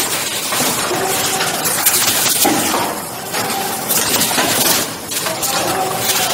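Automatic factory production machine running through its repeating cycle: continuous mechanical noise with clatter, knocks and rushing noises that recur every second or two.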